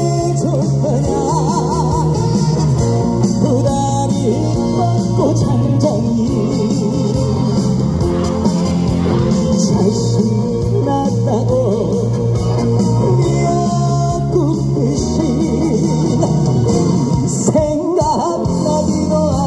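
A male trot singer singing live into a handheld microphone over backing music, amplified through the stage PA speakers.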